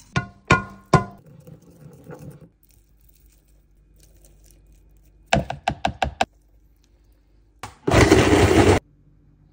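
Three sharp metallic knocks with a ringing tone in the first second, from a stainless steel pan as spices are shaken into it, then a quick run of about six clicks. Near the end a high-powered blender runs for under a second and cuts off abruptly.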